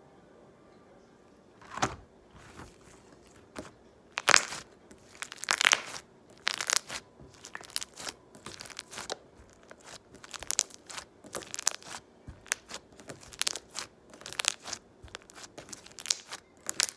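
Green slime being squished, pressed and pulled in the hands, giving off an irregular run of sticky clicks and pops that begins about two seconds in.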